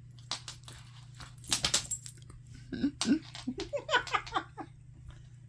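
A burst of clicking and clattering, loudest about a second and a half in, then a quick run of short calls that bend up and down, from a house cat worked up on silvervine and catnip.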